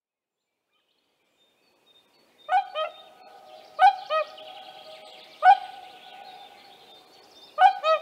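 Whooper swan giving loud trumpeting calls, beginning a couple of seconds in: four bursts, mostly doubled notes, the third a single call.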